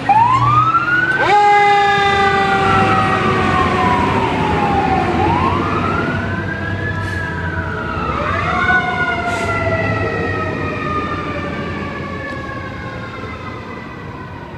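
Fire engine siren wailing, rising and falling slowly, with a long air horn blast that starts about a second in and another around eight seconds in. The sound fades as the truck drives away.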